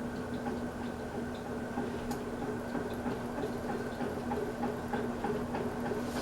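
Hampton Bay Roanoke ceiling fan running: a steady motor hum with a light, regular ticking about twice a second.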